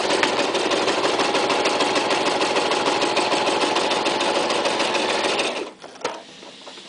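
Toyota Super Jeans J34 sewing machine stitching through thin leather at a steady, rapid pace, stopping about five and a half seconds in, followed by a single click.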